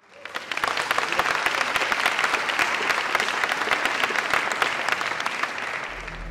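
Audience applauding, a dense patter of many hands clapping that starts abruptly and eases off slightly toward the end. A low electrical mains hum comes in just before the end.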